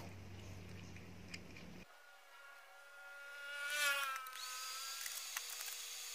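A low steady hum stops abruptly about two seconds in. About a second and a half later a hand-held electric drill spins up with a rising whine, loudest near the top of its run-up, then runs steadily at high speed.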